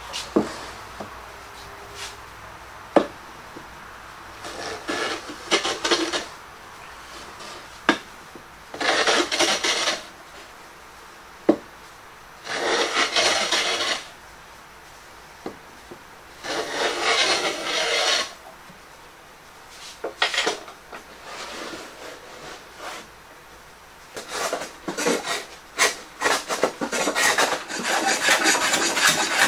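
Hand plane shaving the edge of a pine board, trimming a bandsawn edge back to the pencil line. It makes separate strokes a second or two long, a few seconds apart, then a quick run of short strokes near the end. A few sharp knocks come in the first half.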